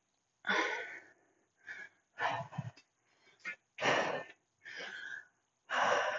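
A woman breathing hard with exertion: a run of short, breathy inhales and exhales, about one a second, while she lifts a heavy dumbbell overhead for tricep extensions.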